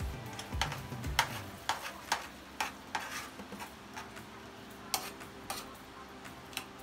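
Metal spoon stirring diced potatoes in a frying pan, clinking and scraping against the pan in irregular taps, about a dozen over several seconds.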